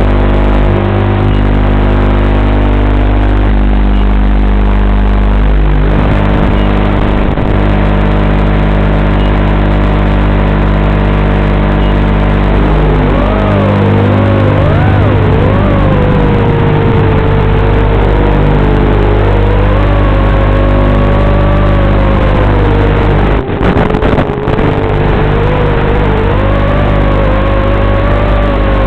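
Eachine Racer 250 Pro racing quadcopter in flight, heard over the FPV video link: a loud, steady electrical-sounding buzz, joined about halfway by a whine that wavers up and down in pitch. Two brief dropouts come a few seconds before the end.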